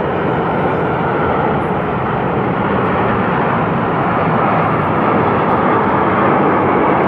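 Jet noise from the Frecce Tricolore formation of Aermacchi MB-339 jet trainers flying past overhead: a loud, steady rushing roar that swells slightly toward the end.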